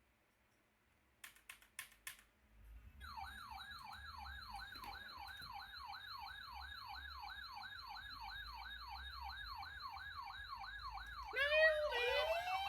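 A siren in a fast yelp, its pitch sweeping up over and over about three or four times a second. Near the end it changes to slower, overlapping wailing glides. A few faint clicks come before it starts.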